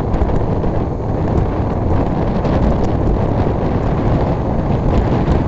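Heavy wind buffeting the microphone of a Bajaj Pulsar 125 motorcycle riding at about 80 km/h, a steady low rush with the bike's running and road noise beneath it.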